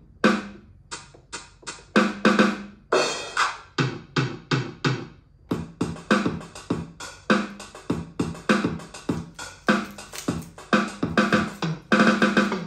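Electronic keyboard playing a built-in drum-machine rhythm through its own speakers: a steady beat of electronic drum hits with pitched notes, set off from the control panel's buttons.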